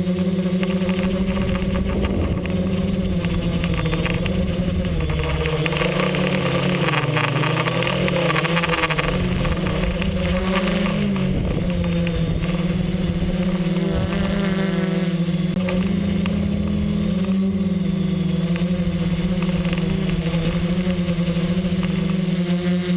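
XAircraft X650 V4 quadcopter's four electric motors and propellers humming steadily, heard from the camera on the craft, the pitch wavering for several seconds as the motors change speed to manoeuvre.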